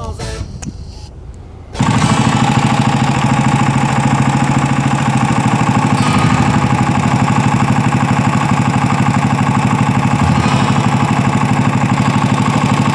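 An engine or motor running steadily with a fast, even pulsing beat, starting abruptly about two seconds in and loud throughout. Before it, background music fades out.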